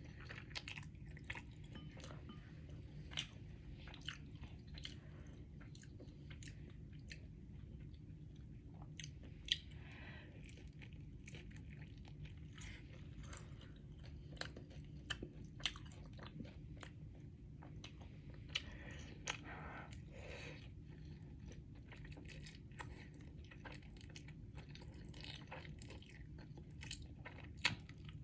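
A person eating Samyang carbonara noodles close to the microphone: chewing and wet mouth sounds, broken by scattered sharp clicks, over a steady low hum.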